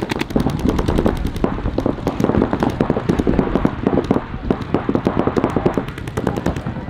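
Paintball markers firing in rapid streams: a dense, near-continuous popping of many shots a second, with brief lulls.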